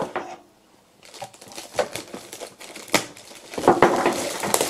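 Clear plastic bag crinkling and rustling as hands pull it off a small frequency drive, with a few sharp clicks and knocks from handling the unit; the crinkling is densest in the last second or so.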